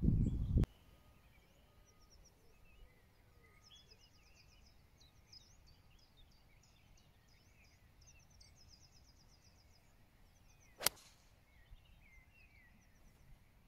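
A golf iron strikes the ball from the fairway: one sharp crack about eleven seconds in. Birds sing and trill throughout. A low wind rumble on the microphone cuts off suddenly in the first second.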